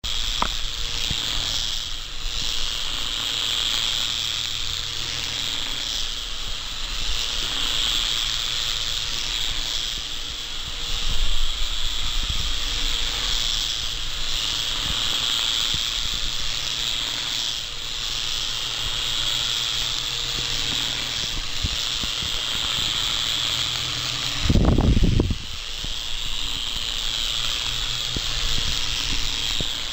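Small electric remote-control helicopter in flight: its motor and rotor blades give a steady high whine and buzz, the pitch wavering a little as it moves around. A few seconds before the end a brief low thump is the loudest sound.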